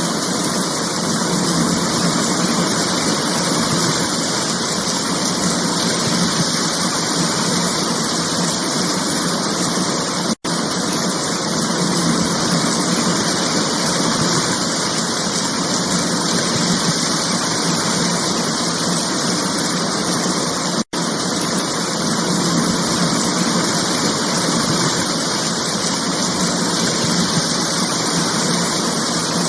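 Rain falling steadily, an even hiss of noise that cuts out for an instant twice, about ten and twenty-one seconds in.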